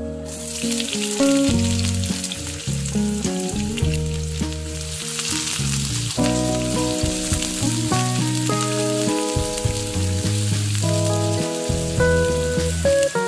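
Chopped onion sizzling in hot olive oil with garlic, starting sharply as it hits the pan and continuing as it is stirred with a silicone spatula, over background music.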